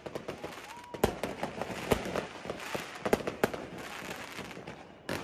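Aerial fireworks going off: several sharp bangs of shells bursting, about a second apart, over a continuous crackle of smaller pops.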